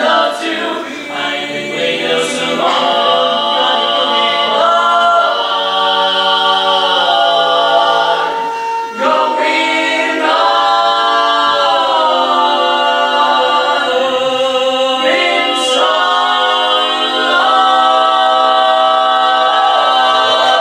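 Four-man barbershop quartet singing a cappella in close four-part harmony, ending on a long held chord.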